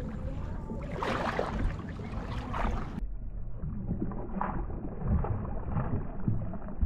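Cast net being thrown and landing on the water, with splashing and wind rumble on the microphone. The sound changes abruptly to a duller tone about three seconds in.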